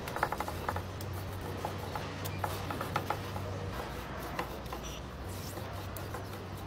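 Chef's knife cutting raw beef into cubes on a wooden end-grain butcher block: irregular soft knocks and scrapes as the blade meets the board, with a quick run of them just after the start. A steady low hum runs underneath.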